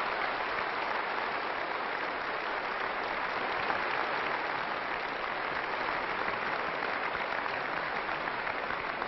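Large arena audience applauding steadily at the end of a gymnastics floor routine.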